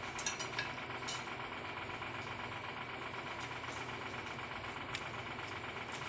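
A steady mechanical background hum, with a few faint clicks from chewing raw leafy greens near the start and about five seconds in.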